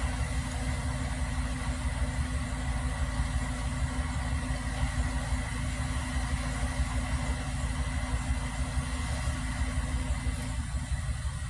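Crane truck's engine running steadily at idle: a continuous low rumble with a faint steady hum above it.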